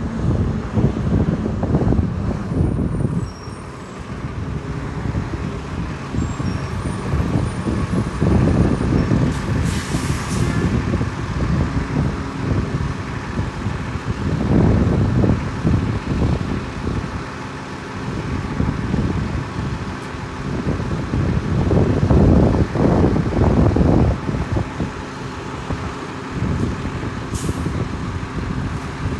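Wind buffeting the microphone: a loud, uneven low rumble that swells and dips, over a faint steady hum, with two short hisses, one about ten seconds in and one near the end.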